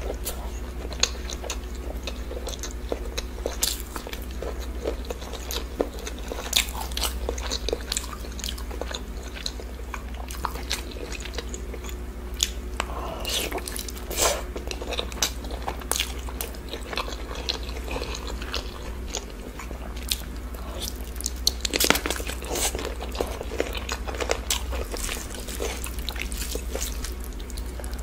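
Close-miked chewing, biting and wet mouth smacks of a person eating chicken biryani and a sauced chicken leg by hand, over a steady low hum.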